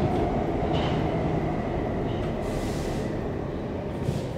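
Stockholm Metro C14 subway car heard from inside, running on the rails and slowing as it pulls into a station. The running rumble eases and a faint whine drops in pitch.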